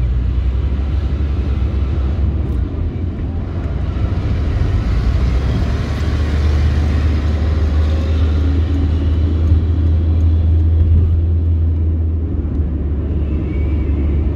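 Cabin noise of a moving taxi: steady low engine and road rumble with tyre noise, swelling a little in the middle.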